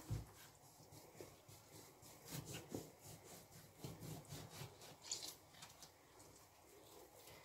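Faint, irregular rubbing strokes of lime halves being twisted and pressed on a plastic hand citrus reamer, with a knife cutting through a lime, after a soft knock at the start.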